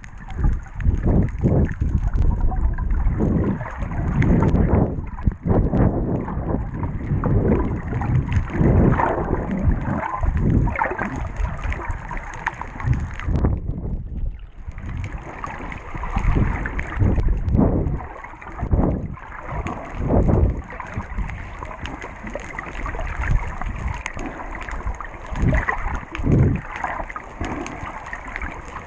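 Muffled water sloshing and bubbling against a GoPro's waterproof housing held just under the surface, coming in irregular surges, with a brief lull about fourteen seconds in.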